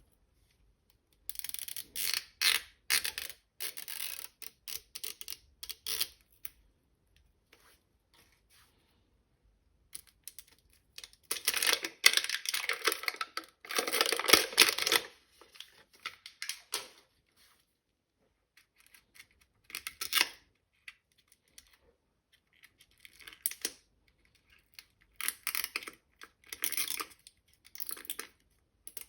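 Unboxing of small toy dolls' packaging: irregular bursts of crinkling and tearing, with quiet gaps between them, loudest from about 11 to 15 seconds in.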